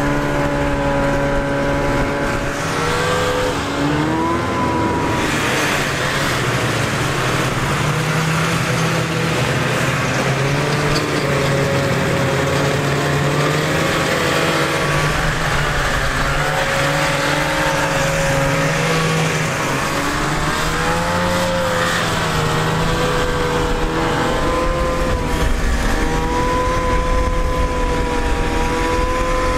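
Vintage two-stroke snowmobile engines running at speed, their pitch rising and falling as the throttle changes and sleds pass.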